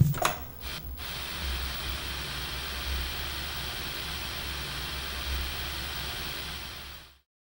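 Television-static hiss used as a sound effect, opening with a few sharp glitch crackles and then running steadily over a low rumble before cutting off suddenly about seven seconds in.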